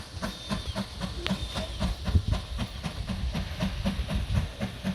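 Heritage steam train on the move, giving a steady, even rhythm of knocks at about five a second over a low running rumble.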